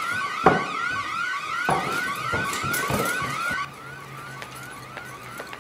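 Electronic alarm siren sounding a fast, repeated rising whoop, about three a second, with a few sharp thumps from running feet and doors. The alarm drops much quieter about two-thirds through.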